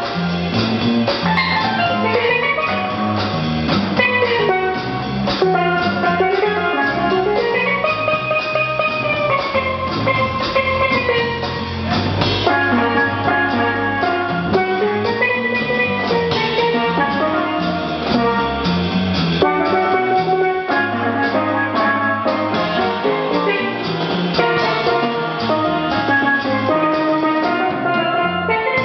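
Steelpan solo played with quick melodic runs that climb and fall, over a drum kit keeping a steady beat and a double bass playing a walking bass line.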